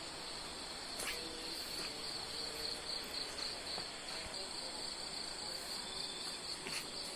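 Insects such as crickets chirring in a continuous chorus, a steady high-pitched trill with a slight pulsing.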